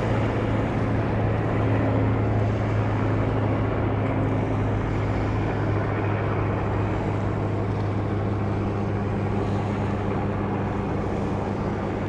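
A steady, low engine drone, its pitch holding level and fading slightly near the end, over a constant outdoor noise haze.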